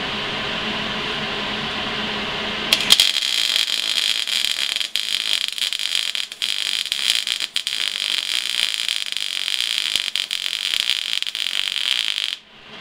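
Eastwood MIG250 MIG welder arc crackling as a weld bead is run on 1" square steel tube. After about three seconds of steady background noise the arc strikes, crackles with brief breaks for about nine seconds, and cuts off suddenly near the end.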